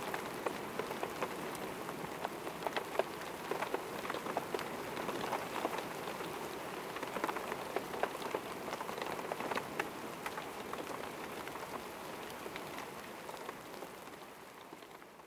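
Rain falling, with many separate drops heard as sharp ticks over a steady hiss, fading out near the end.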